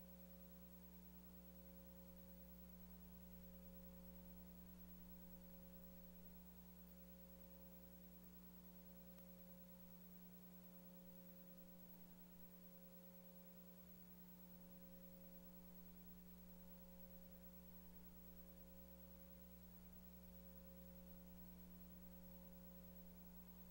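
Near silence with a faint, steady electrical hum of several unchanging tones.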